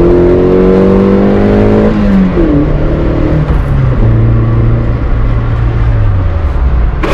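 Toyota AE86 Trueno's four-cylinder engine, heard from inside the cabin: the revs climb under acceleration, drop sharply about two seconds in, then hold steadier at lower revs before falling again near the end. The engine is loud for its small exhaust.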